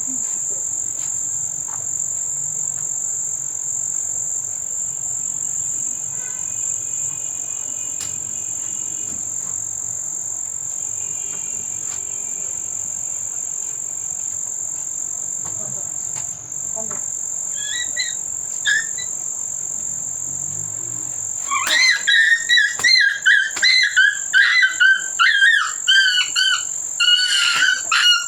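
A steady, high-pitched insect drone runs throughout. About three-quarters of the way in, a dog breaks into rapid, high-pitched barking, several barks a second, louder than the drone.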